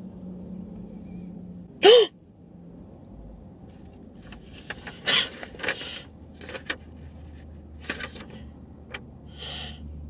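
A woman's short, high-pitched squeal of surprise about two seconds in, followed by a run of quick, excited breathy gasps and exhalations as she takes in good news.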